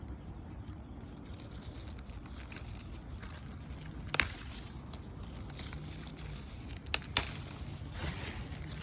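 Leaves rustling and twigs snapping as lemon-tree leaves are picked by hand, with one sharp snap about four seconds in and two more close together about seven seconds in.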